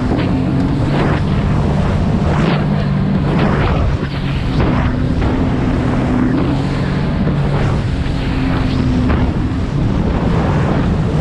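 Sea-Doo GTI 130 jet ski's Rotax 4-TEC three-cylinder engine running steadily at cruising speed, with wind buffeting the microphone and the hull slapping over small chop every second or so.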